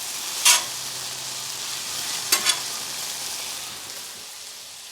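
Chicken thighs and waffle fries sizzling steadily on a Blackstone flat-top griddle, with a few short metal spatula scrapes on the griddle plate: one about half a second in and two close together a little past two seconds.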